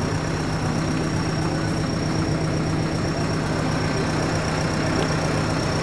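Steyr 4095 tractor's diesel engine idling steadily, with a thin high steady whine over it.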